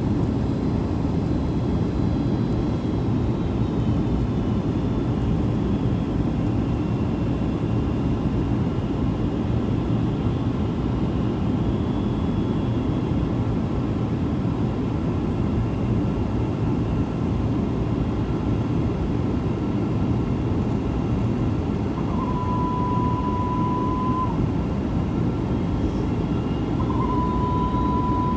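Steady rumble of an airliner's engines and airflow heard inside the passenger cabin on final approach. Near the end two steady high beeps sound, each about two seconds long.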